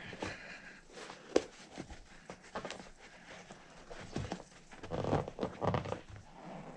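Foam insert being stuffed by hand into a soft rubber RC paddle tire: irregular rubbing and rustling with light knocks, one sharp tap about a second and a half in.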